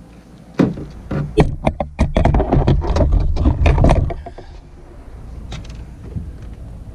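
A rapid run of knocks and clattering hits, starting about half a second in and lasting roughly three and a half seconds, over a low rumble; a couple of fainter ticks follow.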